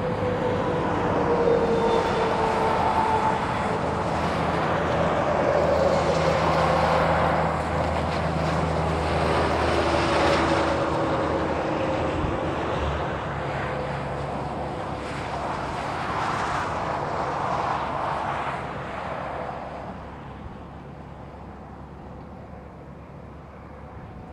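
Diesel freight train running past: a steady low engine hum under a broad rolling rumble, with slowly falling tones. It gets noticeably quieter about twenty seconds in.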